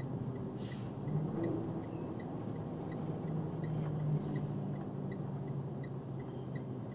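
Box truck's engine and road noise heard inside the cab as the truck slows, with a steady quick ticking from the dash repeating about two to three times a second.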